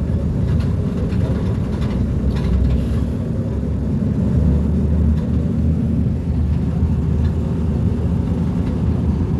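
Mercedes-Benz O-500U city bus engine running with a steady, low drone.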